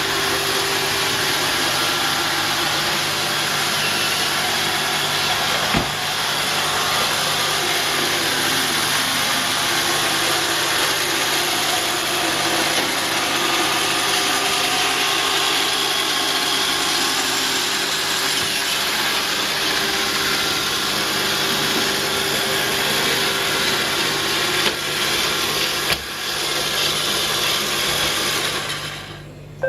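iRobot Roomba robot vacuum running: a steady whirring of its suction motor and brushes, with a light knock twice, and the noise stops near the end.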